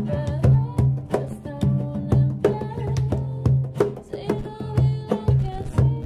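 Acoustic performance: a Taylor steel-string acoustic guitar strummed in a steady rhythm under a woman's singing, with hand percussion keeping the beat.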